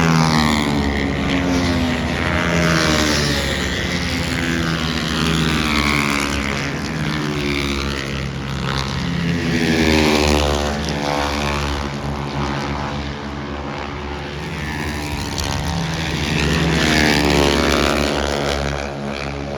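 Several racing engines running at high revs and passing one after another, their pitch rising and falling with each pass.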